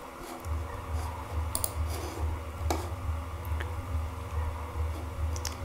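A few scattered clicks of a computer mouse, over a low hum that pulses a couple of times a second.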